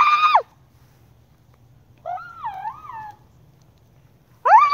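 A girl imitating a wild turkey call with her voice: a loud, high, held note at the very start and again near the end, with a quieter, wavering call about two seconds in.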